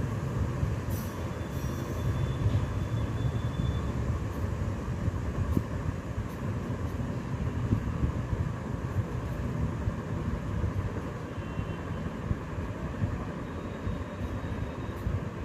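Steady low rumbling background noise, with no speech.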